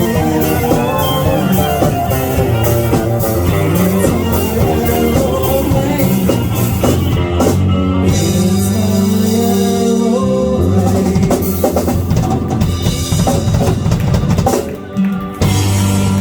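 Rock music with a full drum kit, bass and guitar, with a brief drop-out near the end.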